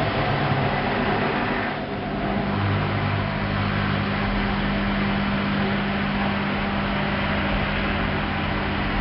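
Hoover washing machine in its first intermediate spin, the motor and drum running steadily at speed, with a slight shift in the hum about two seconds in.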